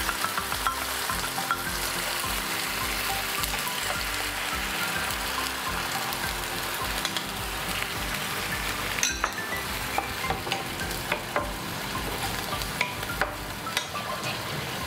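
Chicken stock sizzling in a hot nonstick frying pan with bean sprouts and spring onion. A wooden spatula stirs through it, with many scattered sharp clicks over the steady hiss.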